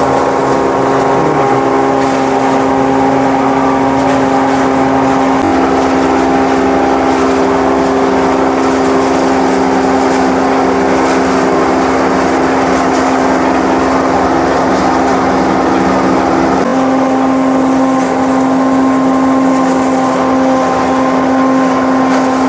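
Electric spice-grinding mill running loud and steady while grinding whole dried red chillies into powder. Its hum changes pitch slightly about five seconds in and again near seventeen seconds.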